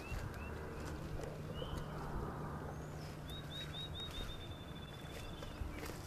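Small songbirds chirping outdoors: a few short high chirps near the start, then a quick run of about six chirps running into a brief trill a little after three seconds in. A faint steady low hum sits underneath.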